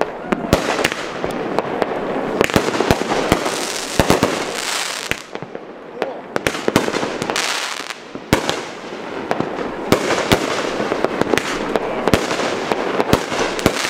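Aerial consumer fireworks going off in quick succession: many sharp bangs and pops over a dense crackle that swells and fades several times.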